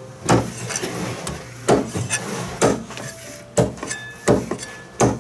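Chinese cleaver chopping through a raw duck onto a thick round wooden chopping block: six heavy chops, roughly one a second.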